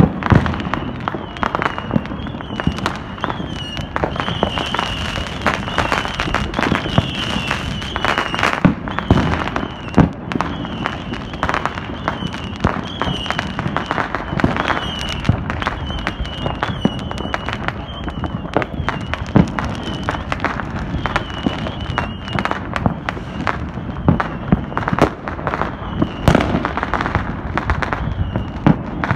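Many fireworks and firecrackers going off at once: a continuous crackle of sharp bangs with louder booms now and then. A high warbling tone runs steadily underneath.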